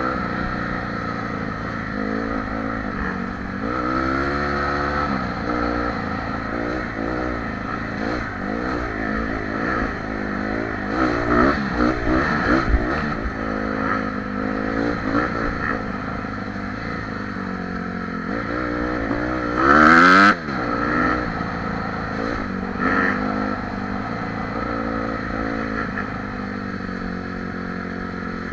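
A Honda CRF150R dirt bike's single-cylinder four-stroke engine being ridden along a trail, its revs rising and falling again and again as the rider accelerates and eases off. About two-thirds of the way through there is a sharp rev and a short, loud burst of noise.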